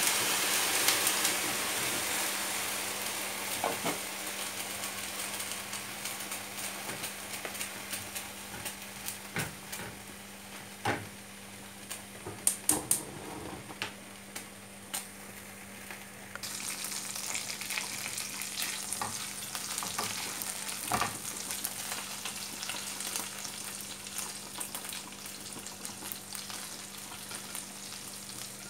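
Sliced onions sizzling in hot oil, loudest at the start as they go into the pan, with a spatula stirring and now and then clicking against the pan. Past the halfway point the sizzle turns abruptly louder, and a steady low hum runs underneath.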